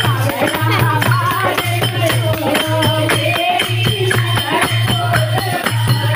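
Kirtan: a group of women singing a devotional song together, with jingling percussion and a low beat about once a second keeping a steady rhythm.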